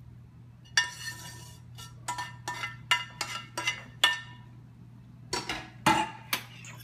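Utensils scraping and tapping against a frying pan while fried pancetta is knocked out of it onto a bowl of spaghetti. A quick run of a dozen or so ringing clinks, then a few more near the end.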